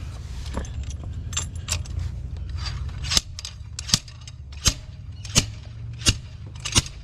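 Hand tools clinking and tapping on metal while a stuck diesel injector is worked loose from the cylinder head. From about three seconds in, sharp metallic taps come at a steady pace, about one every 0.7 seconds, over a low hum.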